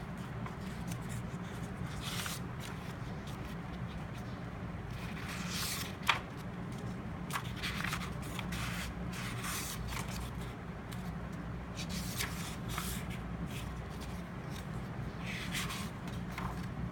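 Paper being handled: pages of a planner rustling and scraping at irregular moments over a steady low hum, with one sharp tap about six seconds in.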